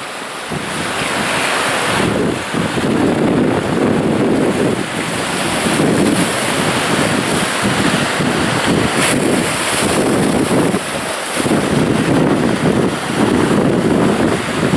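Sea surf: small waves breaking and washing over rocks and shallow water in a continuous rush that swells and falls every second or two. Wind buffets the microphone in gusts.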